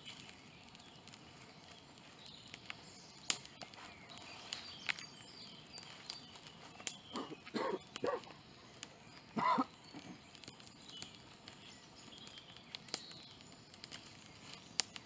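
Quiet woodland ambience with faint birdsong and scattered small clicks. About halfway through come a few short animal calls: two close together, then a louder one a moment later.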